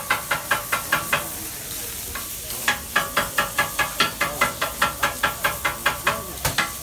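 A metal blade chopping grilled chicken breast on a hot steel flat-top griddle: rapid, even clacks of steel on steel, about four or five a second, over a steady sizzle. The chopping stops for about a second and a half after the first second, then resumes.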